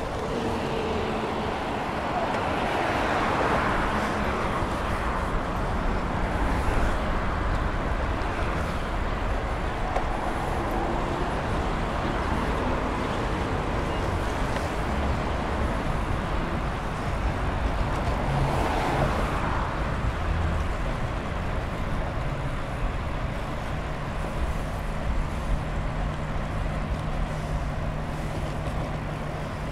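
Steady road traffic from a busy multi-lane road alongside, heard from a moving bicycle. Vehicles swell past, louder once a few seconds in and again about two-thirds of the way through, and a low engine hum comes in near the end.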